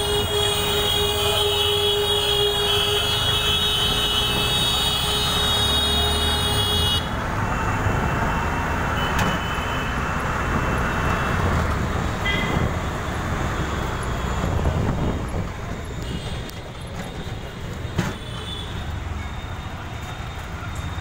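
Auto-rickshaw engine running under steady street-traffic noise, heard from inside the open three-wheeler's cabin. A long high-pitched tone cuts off suddenly about a third of the way in, and a short horn toot sounds around the middle.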